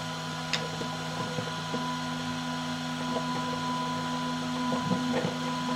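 Steady electric hum from the clay 3D printer's geared extruder stepper motor, two low tones with a faint higher whine, the upper tone growing stronger about two seconds in as the motor is driven to pull in the plunger drive screw. A few light clicks and knocks from the parts being handled.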